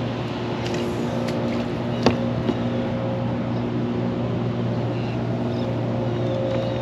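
A boat motor running steadily with a low, even hum, and a single sharp knock about two seconds in.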